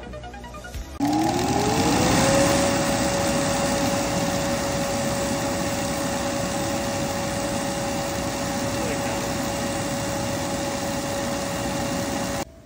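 Electric bounce-house blower switched on about a second in: its motor whine rises in pitch for about a second as it spins up, then holds a steady pitch over a loud rush of air. The sound cuts off suddenly near the end.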